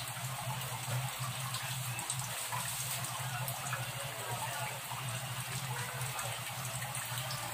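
Chicken necks boiling in adobo sauce in a metal wok: a steady bubbling with small pops scattered through it. A steady low hum runs underneath.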